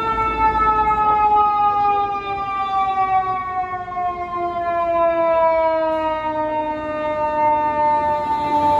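Fire engine siren sounding one long wail that falls slowly and steadily in pitch after a quick climb just before.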